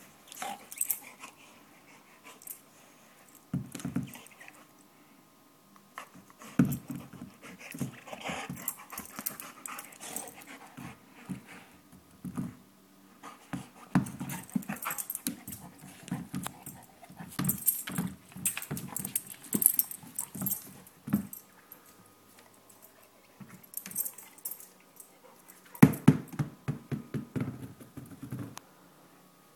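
Golden retriever playing with a black Goughnuts Maxx rubber ring toy: irregular bouts of knocks and scuffs from the toy and the dog's paws on the floor, mixed with the dog's own breathing noises, loudest a few seconds before the end.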